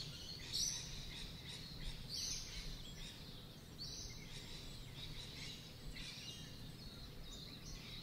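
Birds chirping faintly, with high calls repeating about every second and a half that fade after the first few seconds.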